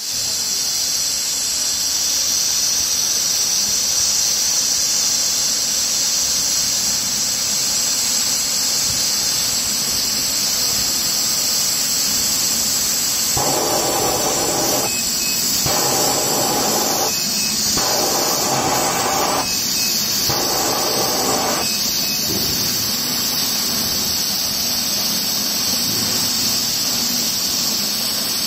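A 300 W hybrid laser cutter hisses steadily and high, with its air blowing at the cutting head. About halfway through come four bursts of louder rushing noise, each a second or two long, as the laser fires and cuts through 30 mm thick acrylic.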